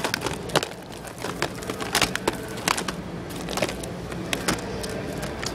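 Plastic Blu-ray and DVD cases clacking against each other in irregular sharp clicks, a couple a second, as a hand flips through them in a bin.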